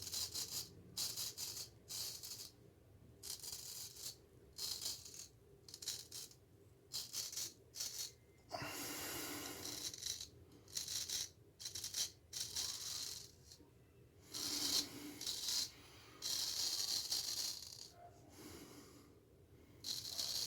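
Straight razor scraping through stubble on the face in a series of short strokes, with a few longer strokes in between.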